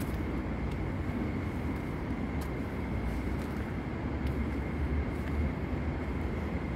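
Steady low rumble of ambient noise with a faint, steady high tone above it and a few faint clicks.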